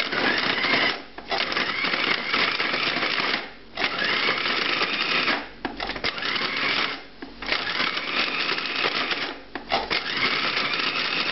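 Cuisinart food processor pulsed about six times, its motor whirring for one to two seconds at a time with short stops between. Each run has a whine that rises as the motor spins up. The blade is cutting frozen butter and pork fat into flour down to a coarse stage for pastry dough.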